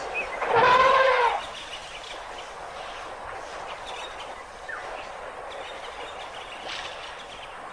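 African elephant trumpeting once, a loud call about a second long with a slightly arching pitch, about half a second in.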